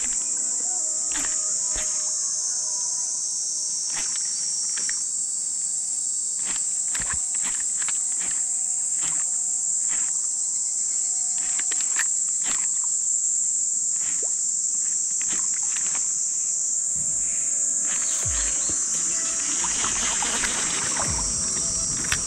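Steady high-pitched drone of a summer insect chorus, with scattered sharp clicks; in the last few seconds a rougher rustling with a few low thumps joins in.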